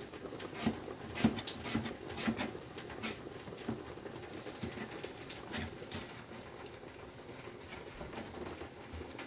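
Kitchen knife tapping and scraping on a cutting board as vegetables are cut by hand, in short, irregular light clicks a few times a second.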